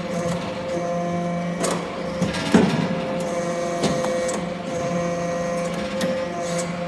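Hydraulic metal briquetting press running: the steady hum of its hydraulic power unit, with a few knocks about two, two and a half, four and six seconds in, the loudest near two and a half seconds.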